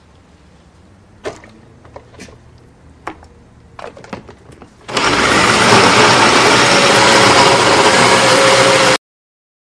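A few separate knocks and clinks, then an electric countertop blender switches on about five seconds in and runs loud and steady for about four seconds before stopping suddenly.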